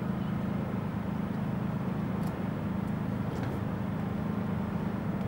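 A steady low rumble of background noise, with a couple of faint ticks about two and three and a half seconds in.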